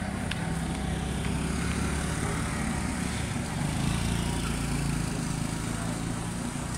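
Small motor scooter engines running steadily, over general street noise.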